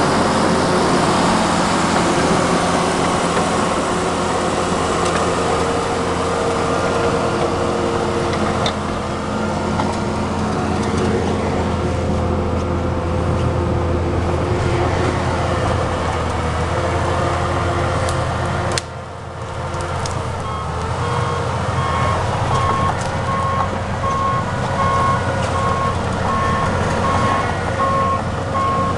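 John Deere 750C crawler dozer's diesel engine running steadily at close range. After a sudden break about two-thirds of the way through, its reversing alarm starts beeping at a regular pace over the engine as the dozer backs toward the camera.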